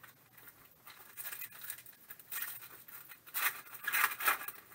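Foil wrapper of a Panini Prizm football pack crinkling and tearing as it is pulled open by hand, in several crackly bursts that grow louder, the loudest near the end.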